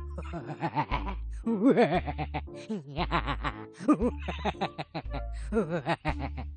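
Cartoon monkey character snickering and giggling in several runs of wavering laughter, over background music with a steady bass beat.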